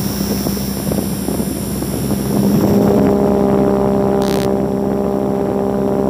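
A small DC motor spins a plastic propeller with a steady buzzing hum and a rush of air. About two and a half seconds in, sustained droning tones join it, and a short hiss comes near the middle.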